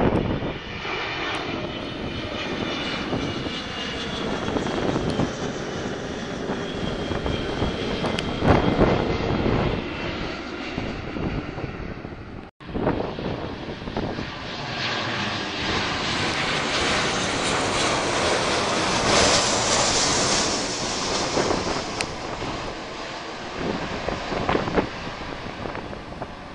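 Jet airliners passing low overhead on landing approach, one after the other. First a Korean Air Boeing 777 with its gear down: a rushing jet noise with an engine whine that falls in pitch as it goes over. After a break, a narrow-body twinjet's rush swells to its loudest about seven seconds after the break, then fades as it flies away.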